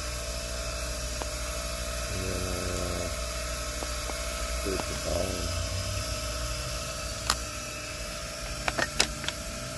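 High-speed rotary grinder running steadily, grinding down the corner of a chainsaw's replacement ignition coil so it fits. A few sharp clicks come near the end.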